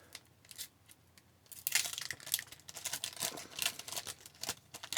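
Hockey card pack wrapper being torn open and crinkled in irregular crackling bursts starting about a second and a half in; the wrapper gets ripped to shreds.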